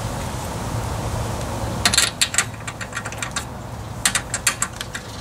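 Ratchet wrench on a spark plug socket clicking in quick runs, starting about two seconds in, as a snowblower engine's spark plug is worked loose; a steady low background hum sits under it.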